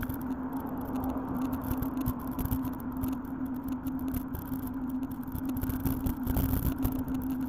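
Wind and road noise on a bicycle-mounted camera while riding in traffic: an uneven low rumble of wind on the microphone with a steady low hum, and vehicles passing on the road.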